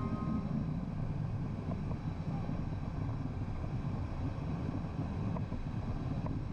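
Cabin noise in a Cessna Citation I jet with Williams FJ44 engines as it rolls along the ground: a steady low rumble of the engines and airflow, heard from inside the cockpit.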